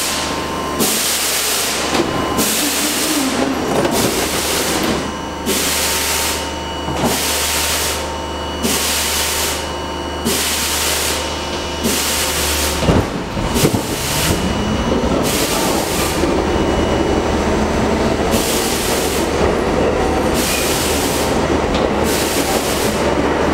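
An R42 New York City subway car running through a tunnel: steady wheel and track noise with a hiss that pulses about once a second. About halfway through, a low hum cuts off with a clunk, and then a motor whine rises in pitch.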